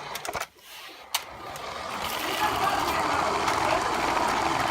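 Small electric motor of a toy RC car whirring as it drives across the floor, building up and holding steady from about a second and a half in, after a few light knocks.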